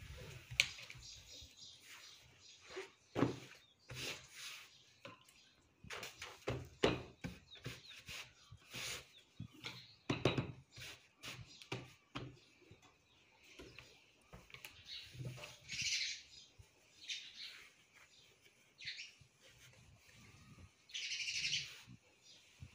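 Heavy electric clothes iron knocked down and slid over denim jeans, with the scrape and rustle of the fabric as it is pressed and smoothed flat by hand, in a run of short irregular knocks and scrapes. Birds chirp now and then in the background, loudest near the end.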